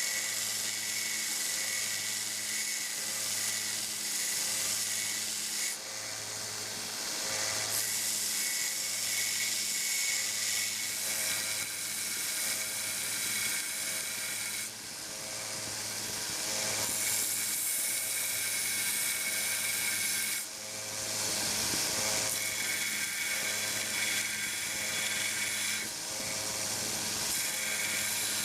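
1x30 belt sander running with an 80-grit belt while steel screwdriver tips are ground on it: a steady motor hum under a loud hissing grind. The grinding eases off briefly about six, fifteen and twenty-one seconds in, as the steel is lifted from the belt.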